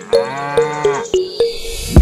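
A sheep bleating once, a drawn-out wavering call in the first half, over background music with plucked notes and a sharp drum hit at the end.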